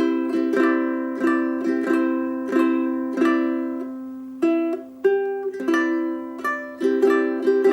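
Ukulele played solo: a run of plucked notes and chords, a few a second, each ringing on, with a short lull about four seconds in before the playing picks up again.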